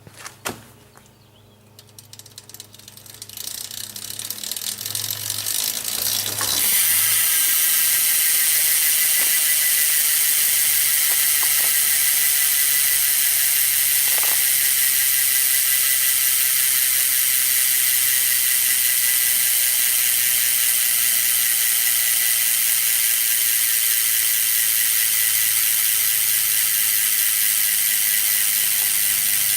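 NS Coaster Pro freecoaster rear hub ratcheting as the rear wheel spins, its pawl clicks so fast they merge into a steady high buzz. It builds up over the first several seconds, then holds steady and loud.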